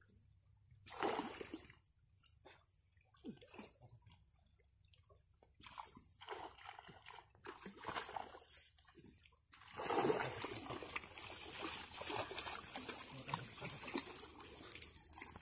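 Pond water splashing and sloshing as a fishing net is hauled through the shallows by hand, in irregular bursts at first and then a longer, steadier stretch of splashing from about ten seconds in.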